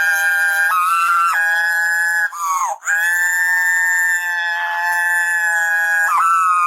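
A high, howl-like wail held in long notes that jump between a few pitches, with two short downward slides.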